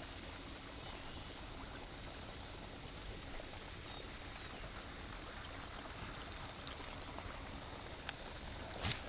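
Faint, steady water splashing from a pond aerator fountain, with a few small clicks and one short knock near the end.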